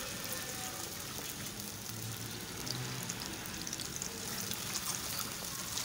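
Sliced onions and garlic sizzling in hot oil in a steel karahi, a steady frying hiss with scattered crackles, the onions just starting to turn light brown.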